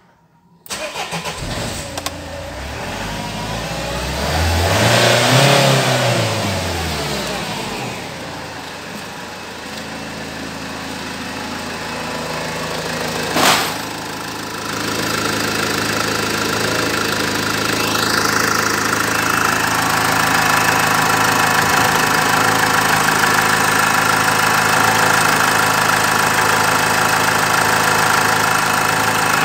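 Opel Vivaro's 1.9 four-cylinder turbodiesel (F9Q762) starting up about a second in, its revs rising and falling back once over the next few seconds, then idling steadily. A single sharp knock about halfway through.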